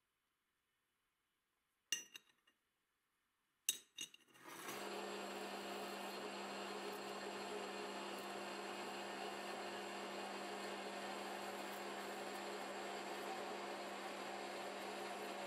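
A few sharp metal clinks about two and four seconds in, then a metal lathe starts and runs steadily with an even hum, its carbide-insert tool turning down a metal tube.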